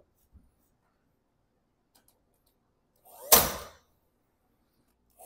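Cordless nail gun firing once into a wooden rafter about three seconds in: a brief build-up, then a single sharp crack that dies away quickly. Near silence before it.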